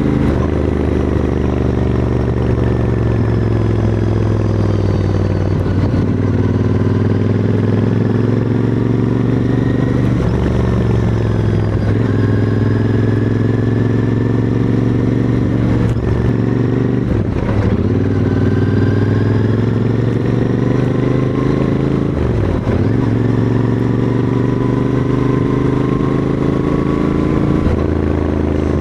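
Royal Enfield Interceptor 650's 648 cc parallel-twin engine and exhaust running steadily on a downhill ride, heard from the rider's seat. The note rises and falls with the throttle, with several brief dips in the revs that pick straight back up.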